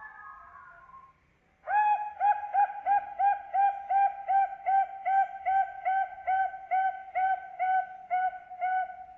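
Zebra dove (perkutut) cooing. A soft warbling phrase opens, then from about two seconds in comes a long, even string of about twenty cooing notes, roughly three a second, stopping just before the end.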